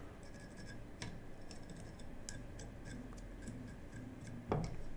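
Faint scratchy ticks of a dubbing brush being stroked through the fibres of a tied nymph fly to tease them out, with one louder scratch near the end.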